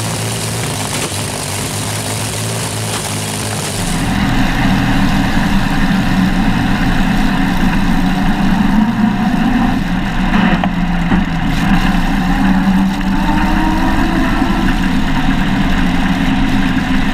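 The 18.3-litre water-cooled V12 of the Sunbeam 350HP land speed record car running steadily while standing, then, from about four seconds in, louder from the cockpit as the car drives along, its note rising a little near the end.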